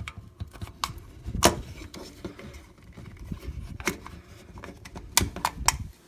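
Scattered sharp clicks and light scraping as a Glock magazine floor plate is worked and slid onto the magazine body, with a loud click about a second and a half in and a quick run of clicks near the end.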